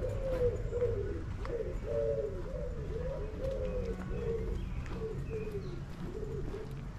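Pigeons cooing: a continuous string of low, arching coos, several overlapping, over a steady low rumble.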